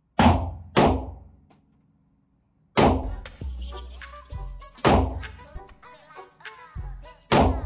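AR-15 rifle in 5.56/.223 firing in an indoor range booth: two sharp shots about half a second apart, then a short pause. From about three seconds in, single shots come roughly every two seconds with rap music playing under them.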